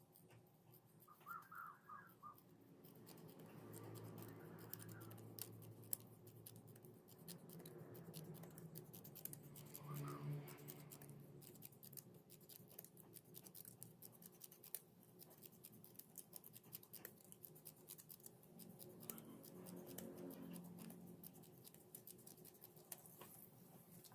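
Faint snipping and crinkling of scissors cutting mika plastic sheet and gift ribbon, a steady run of small clicks. A faint low hum swells and fades three times underneath.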